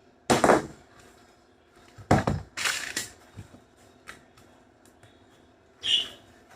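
Hammer blows on wood, four loud strikes at uneven spacing, as nails are driven into the wooden feeder; the last strike rings briefly.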